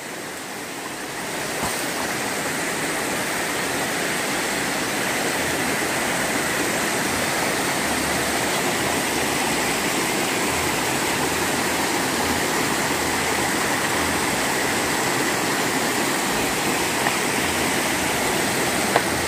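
Shallow rocky stream rushing over stones, a steady rush of water that swells over the first two seconds and then holds.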